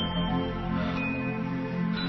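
Background music: soft, sustained new-age style chords.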